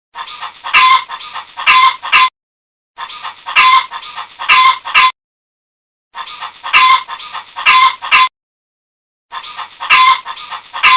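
Chicken clucking: a run of soft clucks followed by a few louder calls. The same bout repeats four times, with about a second of silence between each.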